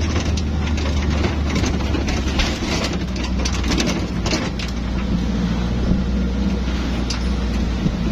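A motor vehicle running: a steady low engine hum under an even rushing noise, with scattered light clicks and rattles.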